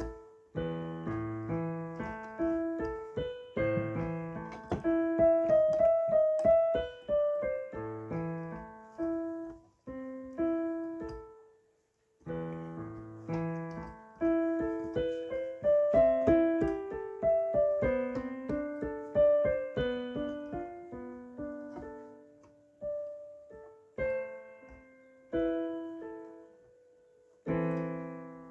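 Piano being played: a melody over chords, each note struck and dying away, with a short break about ten seconds in.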